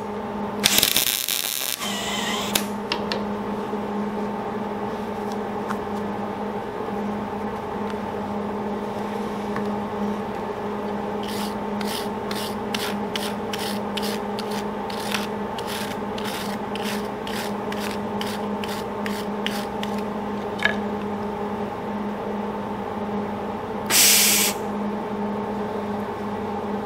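A MIG welder's arc crackles for about a second near the start. After that a steady hum carries on underneath. Midway comes a run of short scraping strokes, about two a second, and near the end there is one short, loud hiss.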